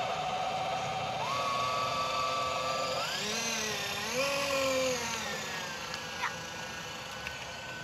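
Small electric motor driving an RC tugboat's gearbox on a test run, giving a steady whine. The pitch steps up about a second in, wavers higher for a couple of seconds in the middle, then settles into a steady higher tone.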